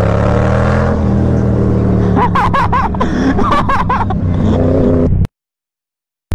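Sport motorcycle engine running steadily while riding, with a wavering high-pitched sound over it from about two to four seconds in; the sound cuts off suddenly about five seconds in, leaving silence.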